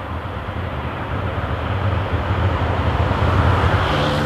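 Early Porsche 911's 2.2-litre air-cooled flat-six running as the car drives along, a low rumble that grows louder, with a steady engine note coming through near the end.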